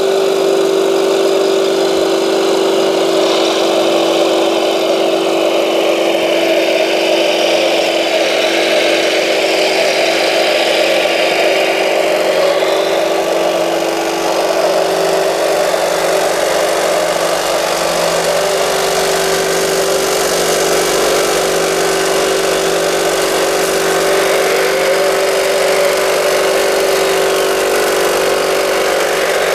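Radio-controlled Volvo L250G wheel loader model running with a steady motor hum at one fixed pitch. A higher whine rises and falls in the middle, as the machine works.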